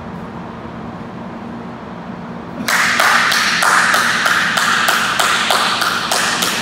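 A person clapping their hands in a steady rhythm, about three claps a second, echoing around an indoor gym. The claps start nearly three seconds in, over a low steady hum.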